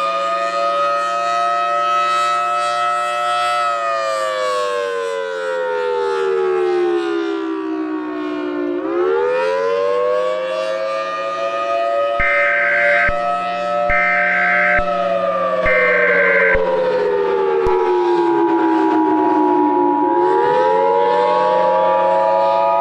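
Civil defence siren wailing: the pitch rises, holds high for a few seconds, then falls slowly before rising again, twice over, as an emergency attack warning. About halfway through, three short beeps sound over it, and a steady second tone joins near the end.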